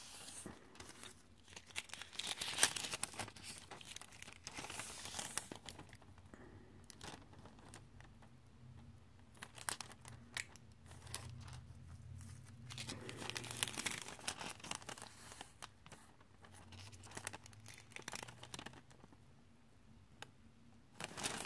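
Thin transparent nail-art transfer foil sheets crinkling as they are handled and unfolded, in irregular bursts of crackling.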